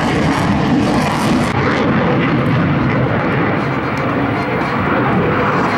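CF-18 Hornet fighter jet in a high-G turn, its twin engines in afterburner: a loud, steady roar. The hiss at the top of it drops away about a second and a half in.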